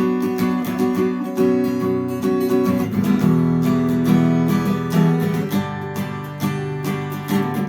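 Acoustic guitar strummed in a steady rhythm, playing the chords of the song's instrumental intro without singing.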